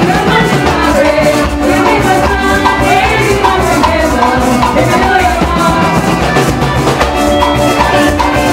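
Live parang band playing: several voices singing over strummed cuatro and guitar, with a steady shaker rattle and drums keeping the rhythm.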